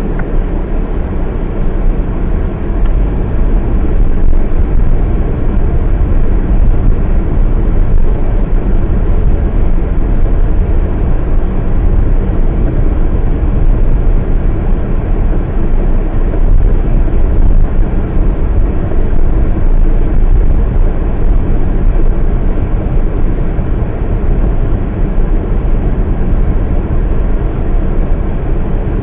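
Steady low rumble of a car's engine and tyres heard from inside the cabin as the car drives slowly.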